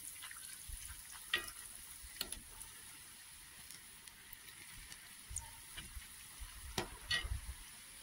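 Gram-flour-battered masala peanuts frying in hot oil in a steel kadai: a steady high sizzle as fresh handfuls are dropped in, with a few light clinks of the steel slotted ladle against the pan.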